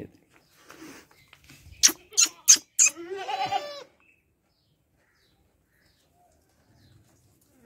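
Four quick sharp knocks, then a goat bleats once: a wavering call lasting about a second.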